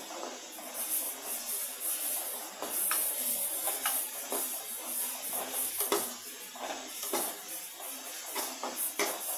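Chopped onion and garlic sizzling in oil in an aluminium kadai as they are sautéed toward browning, while a metal ladle stirs them, scraping and clicking against the pan now and then.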